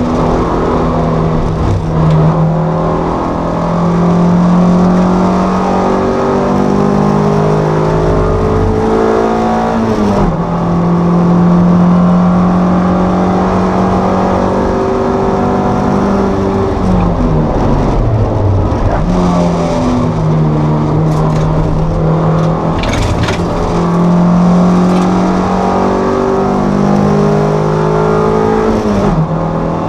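Toyota MR2 race car's four-cylinder engine heard from the cockpit, pulling hard at high revs. Its pitch steps suddenly about a third of the way in and again near the end, and falls away a little past halfway before rising again.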